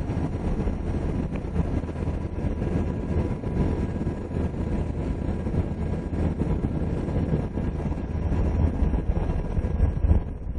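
UH-60 Black Hawk helicopter in flight, heard from on board: a steady low drone of rotor and turbine engines, with a faint steady whine over it.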